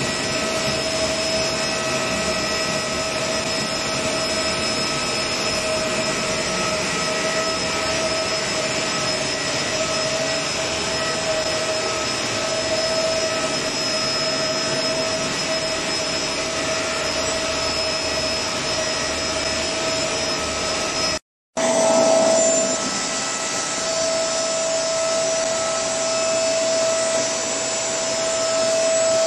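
Corn grits flour grinding machine with its cyclone and dust collector blower running: a steady mechanical whine with a high hum. It cuts out for a moment about 21 seconds in, then carries on.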